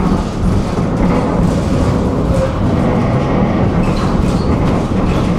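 Tram in motion heard from inside the car: the steady running rumble of its wheels on the rails.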